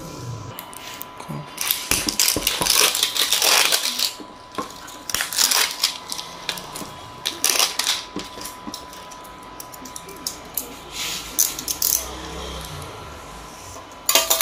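A cardboard smartphone box in plastic shrink-wrap being handled and turned over, rustling and clicking in several short bursts.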